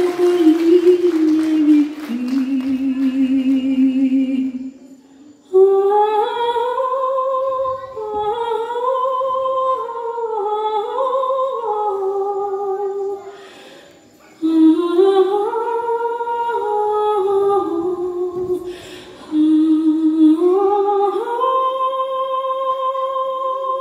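A song playing through the hall speakers: a single high voice sings a wordless melody with vibrato in long phrases, with short breaks between them. It ends on a long held note.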